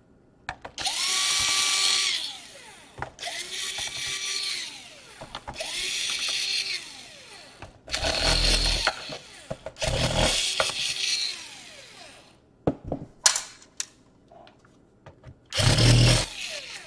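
Small power screwdriver backing out the bottom-case screws of a Dell Inspiron 17 5000 series laptop. Its motor whines in about six short runs, each falling in pitch as it spins down, with a few light clicks in a pause after the fifth run.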